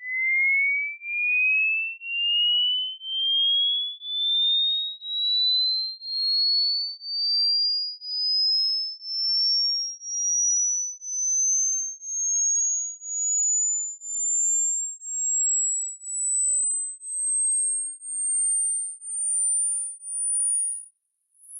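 Hearing-test tone: a single pure electronic tone sweeping slowly and steadily upward in pitch, from a high whistle to a very high, thin whine. It pulses on and off about once a second and cuts off near the end.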